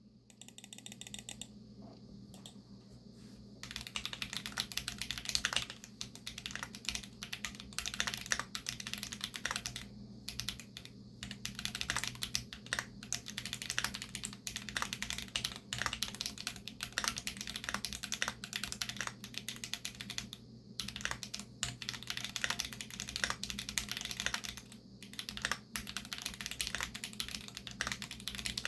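Typing on a Keychron Q2 mechanical keyboard with Krytox 205-lubed Holy Panda tactile switches and Glorious GPBT PBT keycaps: a fast, dense run of keystrokes with a few short pauses. It is faint and sparse at first, with steady typing setting in about four seconds in, over a low steady hum.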